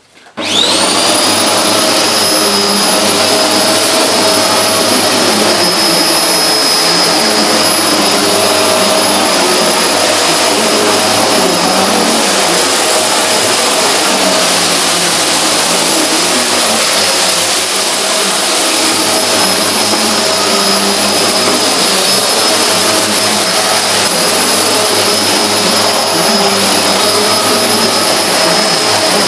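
Hoover Globe bagless vacuum cleaner switched on, its motor spinning up within about half a second into a loud, steady, high-pitched scream that holds while vacuuming.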